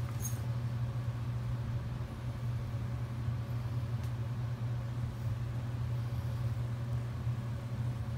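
Steady low machine hum with a faint haze over it, and a couple of faint clicks, about a quarter second in and again about four seconds in.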